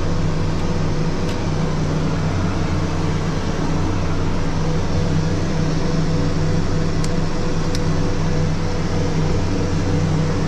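Merlin IIIB's Garrett TPE331 turboprop engines and five-blade MT propellers running steadily after start, a constant droning hum heard from inside the cockpit. Two faint clicks about seven seconds in.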